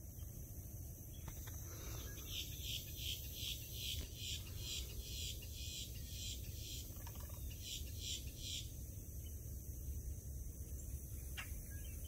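A wild animal's high chirping call, repeated regularly about three times a second, starts about two seconds in and stops about eight and a half seconds in, over a steady low rumble.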